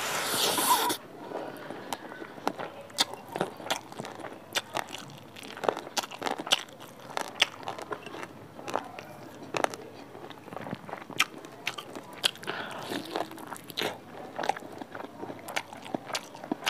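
Close-up mouth sounds of chewing a handful of rice with saucy pork curry: wet chewing with frequent sharp, irregular lip-smacks and clicks. A short, louder noisy burst comes in the first second as the mouthful goes in.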